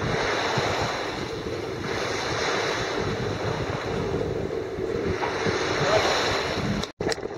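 Water rushing along the hull of a sailboat moving over a flat calm sea, with wind rumbling on the microphone and a faint steady hum underneath. The sound cuts off abruptly near the end.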